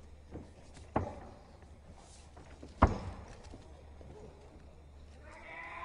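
Two sharp thumps of the fighters' bodies against the ring canvas while grappling, about two seconds apart, the second louder, over a steady low hum. Voices start up near the end.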